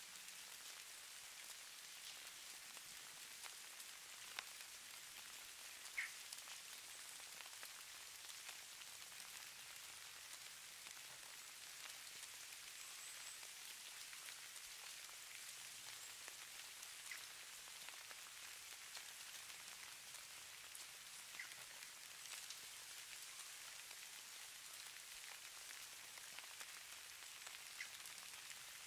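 Falling-snow ambience: a faint, steady hiss of light precipitation pattering on a surface, with a few soft ticks scattered through it.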